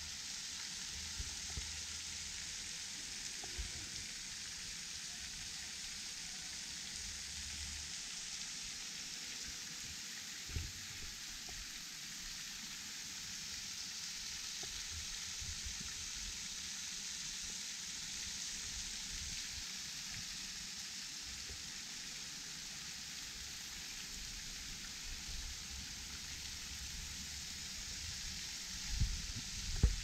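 Small creek waterfall pouring over a rock ledge into the pool below, a steady even hiss with an occasional faint low bump.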